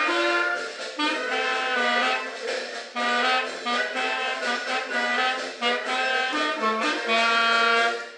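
A single instrument playing a melody in a run of held notes, with stops and new starts, which cuts off at the end.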